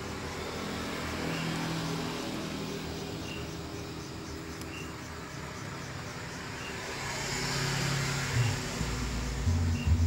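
Music played through a Polytron active speaker after its broken-legged power-supply electrolytic capacitor was replaced: held low notes at first, then heavy bass beats from about eight seconds in, with no warbling distortion.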